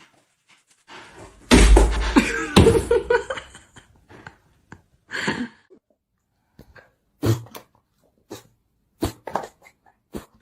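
A dog making short breathy noises: a loud burst with a low thump about a second and a half in, then a string of brief separate ones.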